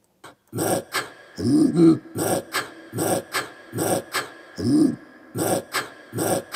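Recording of traditional Ethiopian herders' throat-sound singing played back in the studio: sharp rhythmic grunts and huffs from the throat, about two or three a second, with a few longer rising-and-falling grunts among them.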